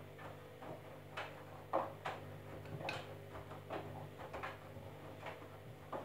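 Candy front-loading washing machine tumbling a wash: a steady motor hum with water sloshing and laundry flopping in the drum, and irregular knocks and clicks, one louder just under two seconds in.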